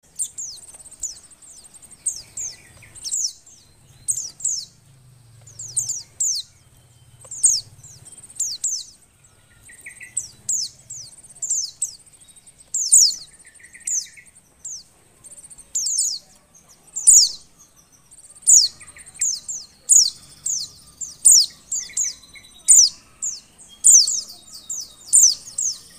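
Female white-eye (pleci) in breeding condition calling: short, high downslurred chirps, mostly in quick pairs or threes, repeated about once a second.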